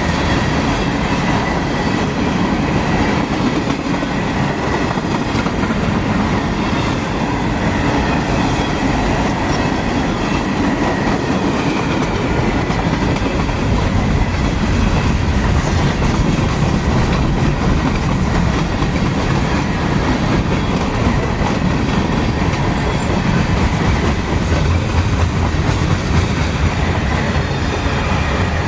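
CSX freight train's cars rolling past, a loud, steady rumble of steel wheels on the rails with a faint thin high tone during the first several seconds.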